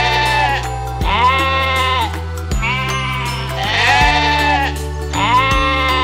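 Sheep bleating again and again, about five calls of roughly a second each, over background music with a steady beat.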